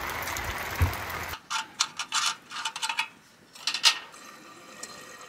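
Steady rain hiss that cuts off after about a second and a half, followed by a series of sharp clicks and knocks from small objects being handled.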